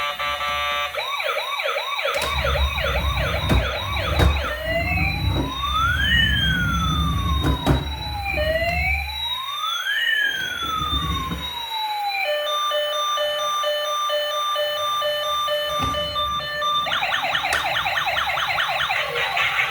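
Electronic toy emergency-vehicle siren cycling through its patterns: a fast warbling yelp, then two slow wails rising and falling across each other, then a steady pulsed beeping. The fast yelp returns near the end, and a low rumble runs under the first half.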